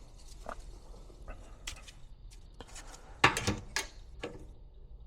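Scattered light clicks and knocks of things being handled at an open furnace cabinet, with a sharper cluster of them a little past the middle.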